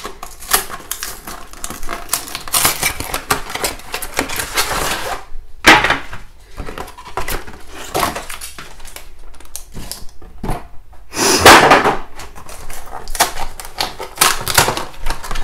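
Cardboard packaging of ribs being opened and vacuum-packed plastic racks handled and slid onto a metal baking tray: steady crinkling and clicking of plastic and card, with two louder rasping bursts, about six seconds in and again near twelve seconds.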